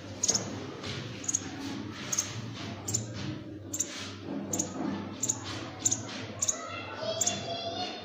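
Nestlings in a wall-cavity nest giving short, high chirps, about two a second and irregular, over a steady low hum.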